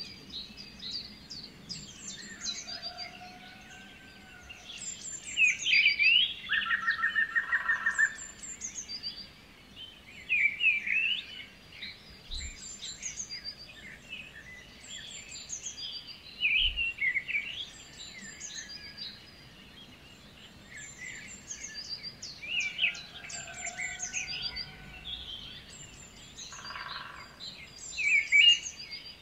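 Several birds singing and chirping, with high twittering calls throughout. A rapid rattling trill comes twice, about seven seconds in and near the end.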